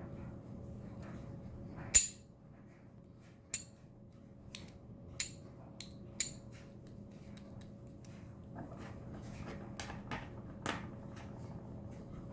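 Small metal parts of a 1/2.5 scale Beretta pistol model being handled: a sharp clack about two seconds in, five more clicks over the next four seconds, then softer ticks and knocks near the end.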